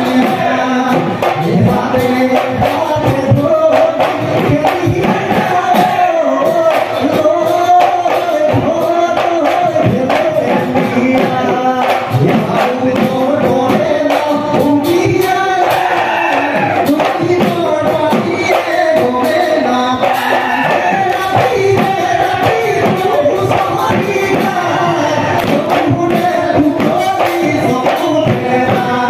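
Bihu husori: a group of singers chanting a Bihu song in chorus over dhol drums and clashing taal cymbals, the percussion striking in a dense, steady rhythm.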